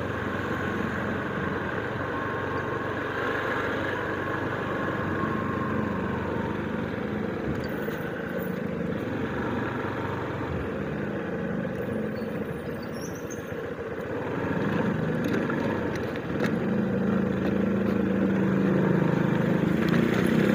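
Motorcycle engine running steadily at low riding speed, heard from the rider's own bike, getting louder over the last few seconds.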